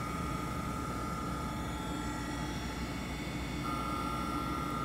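Mitsui MSG-200 surface grinder running with its wheel spinning free: a steady hum with a high, steady whine over it.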